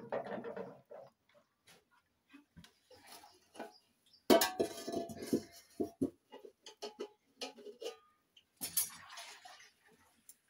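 Clatter of a plate and a metal cooking pot being handled, with a louder clanking about four seconds in as the pot is set onto the mud hearth, ringing briefly. Near the end come scrapes and knocks of firewood being pushed into the fire.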